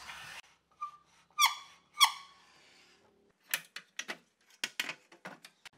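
Wooden dowel on a fence-alignment jig squeaking twice against the table saw's rip fence as it slides along, each squeak falling in pitch: the sign that the dowel end is touching the fence. Then a run of light clicks and knocks as the rip fence and its locking handle are handled.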